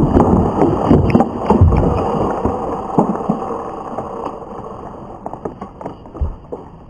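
The aftermath of a small explosive blast in a dirt mound: a dense rush of dirt and debris showering down, dotted with sharp clicks of pieces and a small plastic toy truck landing, fading away over about four seconds.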